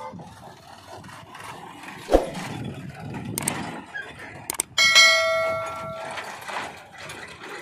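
A sharp knock about two seconds in, then a loud bell-like metallic ring about five seconds in that starts suddenly and fades over a second or so. Low machine noise from the tractor and backhoe loader runs underneath.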